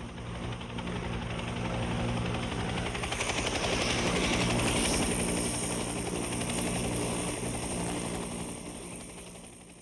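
Helicopter passing over: a fast, steady rotor chop over a low engine hum, growing louder to about halfway and then fading away near the end.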